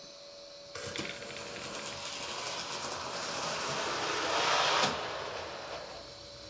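Model railroad switcher locomotive running along the track with a tank car in tow: motor and wheels on the rails, starting about a second in, growing louder, then dying away near the end. A click comes just after it starts and another at its loudest point.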